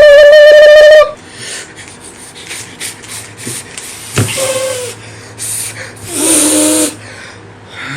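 A boy's loud, held, high-pitched yell that cuts off about a second in, followed by quieter scattered knocks, a sharp click and a brief hissing noise.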